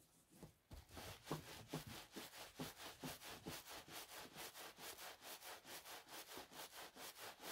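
A towel-wrapped bamboo mat roll with wet felt inside, rolled back and forth under the palms on a table: a soft, even rubbing at about two or three strokes a second, starting under a second in. This is the rolling that fulls the wet wool so it shrinks around the plastic resist.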